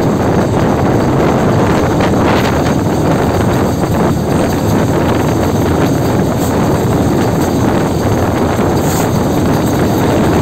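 Moving diesel locomotive heard from outside its cab, with wind buffeting the microphone: a loud, steady rush of noise.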